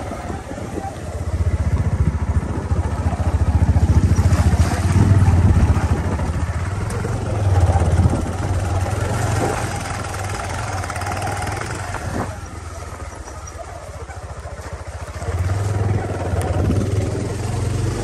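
Motorcycle engine running while riding, heard from on the bike. It pulls harder for the first half, eases off about two-thirds of the way through, then picks up again near the end.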